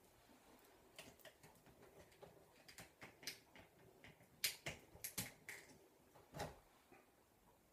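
Faint, irregular clicks and light taps, a dozen or so spread over about six seconds. The loudest comes just past halfway, and a duller knock follows near the end.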